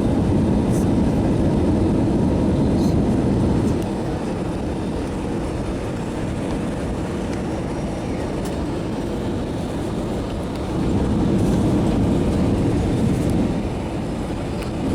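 Airliner cabin noise: the steady rumble of the jet engines and airflow heard from inside the passenger cabin, louder for the first few seconds and again about eleven to thirteen seconds in.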